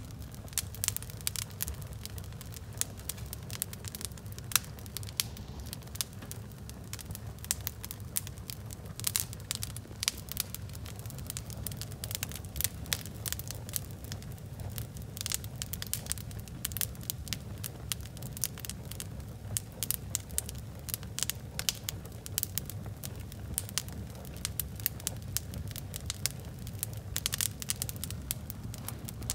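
Wood fire crackling, with frequent irregular sharp pops over a low steady rumble.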